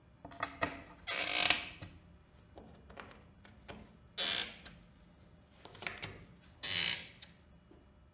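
Metal key turned in a Lamello Bisco P joint connector through a small hole in the panel, tightening it to pull the two panels flush. A couple of sharp clicks come first, then three short mechanical bursts, each about half a second, near 1, 4 and 7 seconds in.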